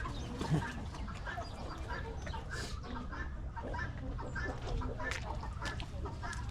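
A flock of chickens clucking and chattering, many short calls overlapping, over a steady low rumble.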